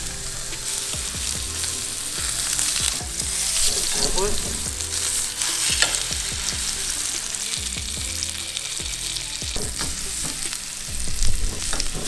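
Blackened blackfin tuna steaks searing in hot sesame oil in a nonstick frying pan on a gas side burner: a steady sizzle, with metal tongs clicking against the pan now and then as the steaks are turned.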